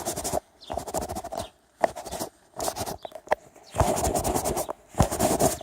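A rag wetted with acetone is rubbed in short scrubbing strokes, with a few sharp clicks between them.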